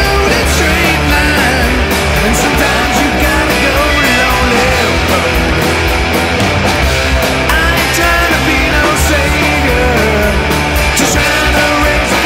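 Loud punk rock band playing live: electric guitars, bass and drums, with regular cymbal hits.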